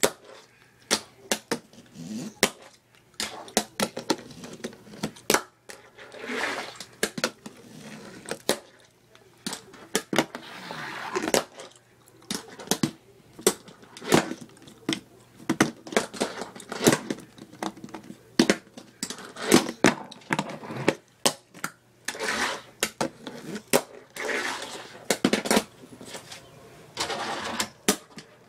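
Tech Deck fingerboard clacking and rolling on a hard surface: many sharp, irregular clicks with short stretches of rolling or sliding noise between them.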